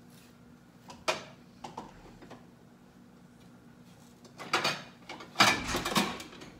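Containers and jars being moved about on a kitchen cabinet shelf: a few light knocks, then a louder clatter near the end.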